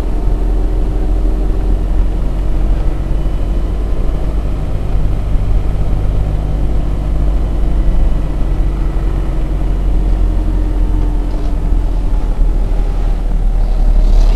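A vehicle heard from inside the cab while driving slowly: a steady low rumble of engine and road, with the engine's tone drifting a little in pitch.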